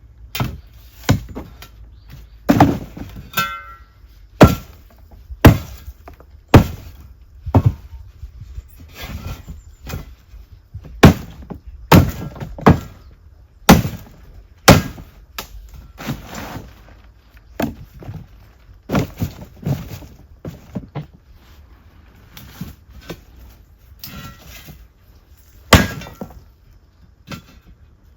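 A series of hard knocks and impacts at an uneven pace, roughly one a second and thinning out after about twenty seconds, some followed by a brief ringing clatter like breaking glass.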